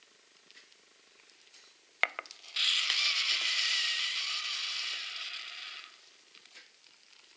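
A sharp knock, then about three and a half seconds of gritty scraping as an enamel pot is slid across the tabletop, easing off before it stops.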